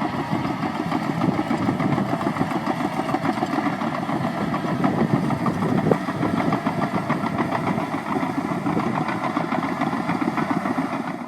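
Caterpillar 963D tracked loader's diesel engine running steadily, with a fast even pulse and one short knock about six seconds in.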